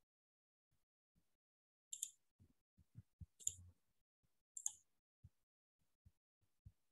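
Near silence broken by three faint, sharp clicks, a second or so apart, and a few soft low thumps.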